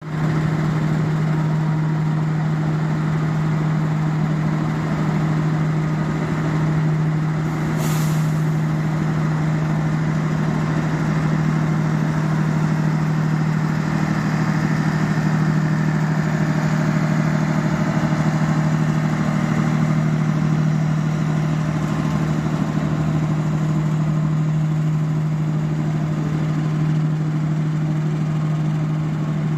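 Railway locomotive running with a steady low hum. A short burst of air hiss comes about eight seconds in.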